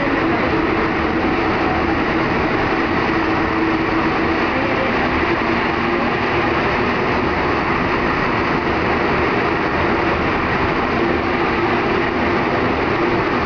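Alstom NS-93 rubber-tyred metro train running through a tunnel, heard from inside the front car: a loud, steady running noise with a steady hum.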